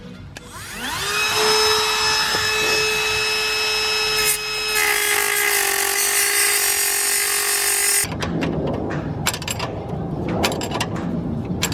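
Dremel rotary tool spinning up with a rising whine and then running at a steady high pitch. About halfway through, a harsher grinding joins in as the cutting disc bites into a seized, rusted nut on the wheel hub. The whine cuts off suddenly about eight seconds in, followed by scattered knocks.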